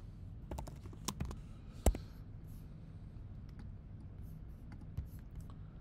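A few scattered, faint clicks of computer keyboard keys and mouse buttons, the sharpest about two seconds in, over a low steady room hum.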